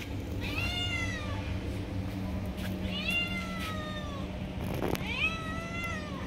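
A cat meowing three times, each a call of about a second that rises and falls in pitch, over a steady low hum.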